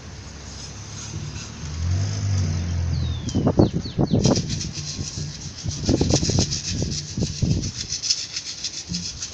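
A motor vehicle passing close by on the street, its engine swelling about two seconds in and loudest around four to seven seconds. Underneath runs the even, rapid rattle of distant batucada percussion.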